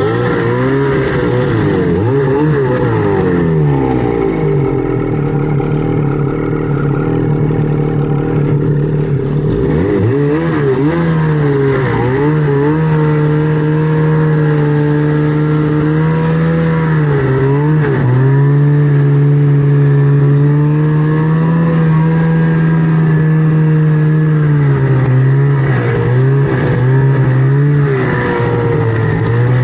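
Snowmobile engine running hard under throttle, its pitch swinging up and down in the first several seconds, then holding a high, steady note with short dips where the throttle is eased and reapplied.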